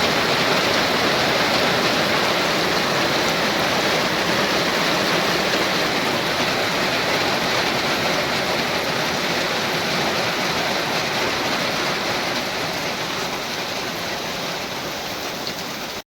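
Heavy rain falling steadily as a dense hiss, easing a little toward the end before cutting off suddenly.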